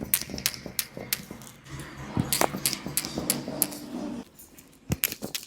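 A run of sharp, irregular clicks and taps, a few each second.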